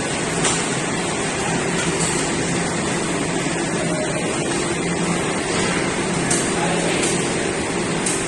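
Snack-frying plant running: a steady hiss, typical of oil frying in kadais, over a low machine hum, with a few short sharp clinks.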